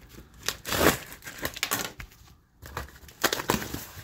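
Cardboard box being ripped open by hand: irregular tearing and crunching of cardboard, with a short pause about halfway through.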